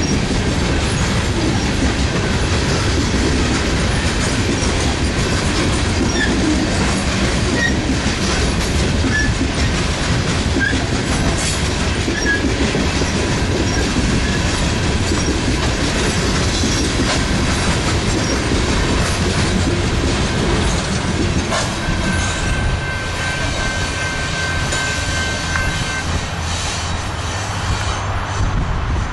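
Coal cars of a long freight train rolling past, a continuous steady rumble of steel wheels on rail with occasional clicks. About two-thirds of the way through, a thin high wheel squeal sounds for a few seconds.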